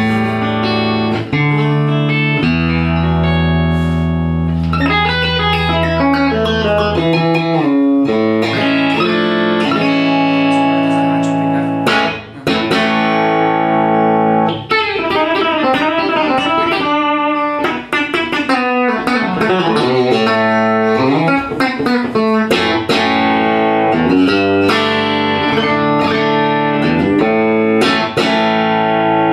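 Tom Anderson Telecaster-style electric guitar with hand-wound, 50s-style Nokkel Telecaster pickups, played through an amp: picked chords and single-note lines, with quick runs of notes in the middle.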